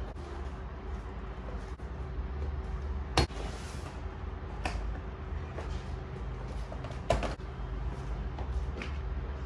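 A few sharp knocks or clacks, like a cupboard or door being handled, the loudest about three seconds in and another about seven seconds in, over a steady low rumble.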